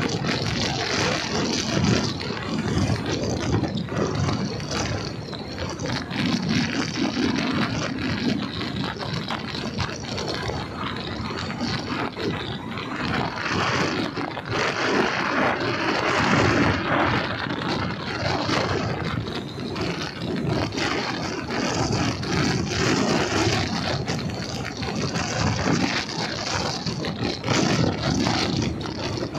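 Wind rushing over the microphone of a moving motorcycle, mixed with its engine and tyre noise on the road, steady and buffeting throughout.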